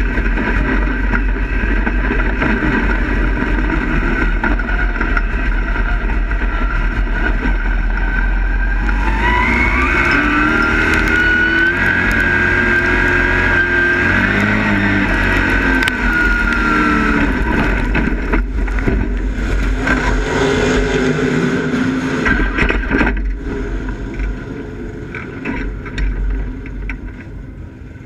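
A dirt-track race car's engine heard from inside the cockpit, running loud and steady, then revving up about nine seconds in and holding a high climbing pitch as the car accelerates on the track. It eases off and gets quieter near the end.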